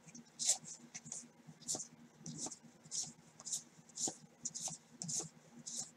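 1989 Score football trading cards being flipped through one at a time in black-gloved hands, each card sliding off the stack with a short, faint swish, about two a second.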